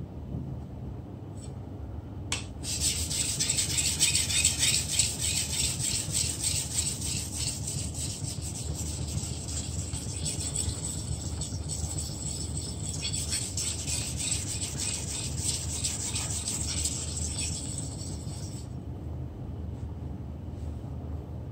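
Knife blade stroked back and forth on a whetstone: a steady scratchy grinding made of rapid repeated strokes. It starts with a small click about two seconds in and stops a few seconds before the end, over a low steady hum.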